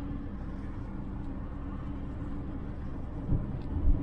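Cargo van driving, heard from inside the cab: steady engine and road rumble, with a couple of short low thumps near the end.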